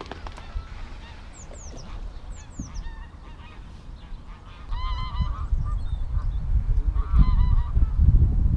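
Geese honking, a few calls at a time about five and seven seconds in, over a low rumble of wind on the microphone that grows louder from the middle on. A small bird gives a few high, falling chirps a second or two in.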